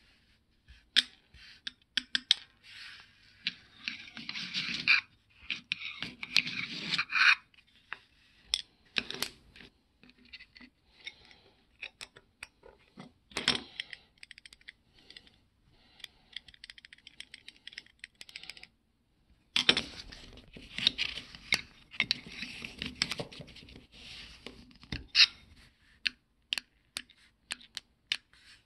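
Steel hex driver bit and a small socket-head screw scraping and clicking against a workbench top, with bursts of scratching and irregular light taps as the screw is nudged, picked up on the bit and set down.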